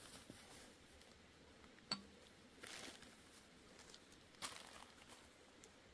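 Mostly near silence, broken by a sharp clink about two seconds in and two brief rustles, as litter such as cans and bottles is gathered into a thin plastic bag.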